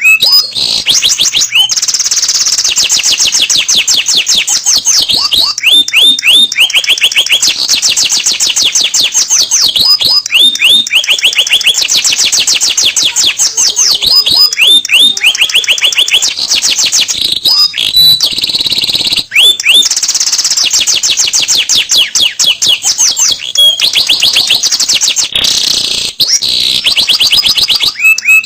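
Domestic canary singing a long, unbroken song of rapid trills: fast runs of one repeated high note that switch to a new run every second or two.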